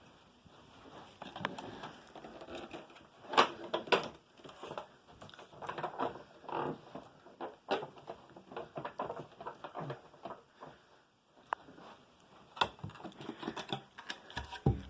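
Hands handling a switched-off plastic upright vacuum cleaner: irregular plastic clicks, knocks and rustling, the sharpest pair about three and a half and four seconds in.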